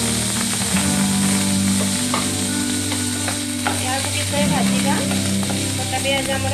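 Chopped onions sizzling in hot oil in a nonstick kadai, with a wooden spatula stirring and scraping through them in the second half, over background music.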